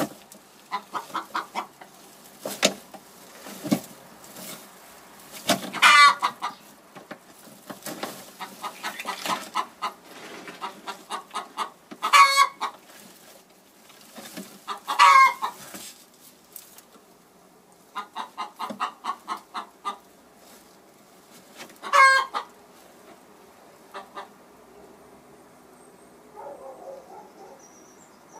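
Hen clucking: runs of quick clucks broken by four loud drawn-out squawks, the pattern of a hen's laying cackle.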